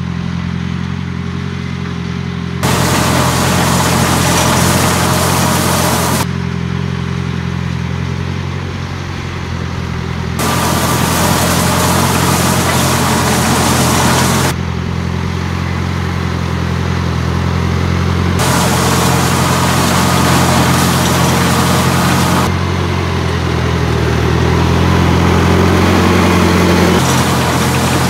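Farm tractor engine running steadily while it pulls a rotary hay rake through cut grass. The sound switches every few seconds between the cab, where a hiss and clatter from the machinery ride over the engine, and the field, where the engine's low drone is heard alone.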